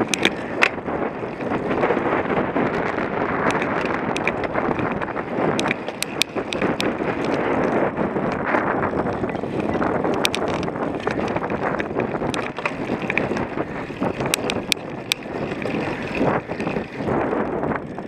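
Cyclocross bike ridden hard over rough ground, with wind rushing over the microphone and the tyres rolling, and many sharp clicks and rattles scattered throughout.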